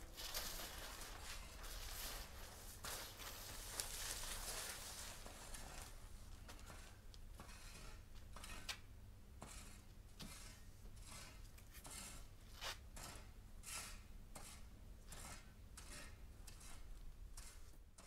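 Plastic film rustling and crinkling as it is handled: a few seconds of continuous rustle, then a string of short crackles about one or two a second.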